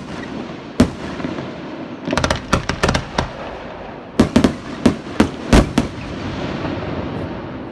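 Aerial fireworks going off: a single bang about a second in, then two quick clusters of sharp bangs, each trailing a rumbling echo that builds toward the end.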